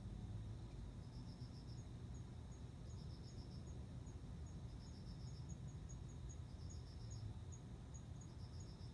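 Male cricket singing: chirps of five or six quick pulses, repeating about every two seconds, with the song drawing a female to mate. A fainter, higher single-note chirping of another insect ticks along two or three times a second.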